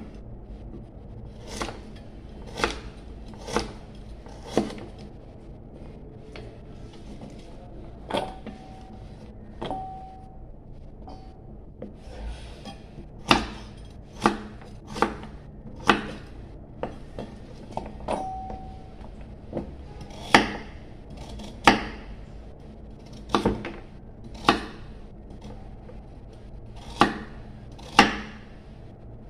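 Kitchen knife chopping carrot on a thick wooden chopping board: sharp knocks of the blade on the wood, coming in runs of a few strokes about a second apart with pauses between.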